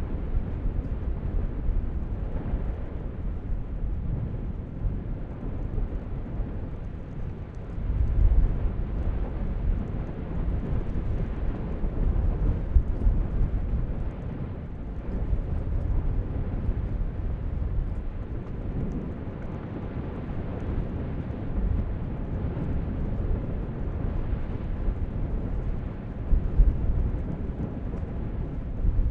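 Low rumbling of a volcanic vent erupting and fountaining lava, with a few louder surges, one about a third of the way in and another near the end.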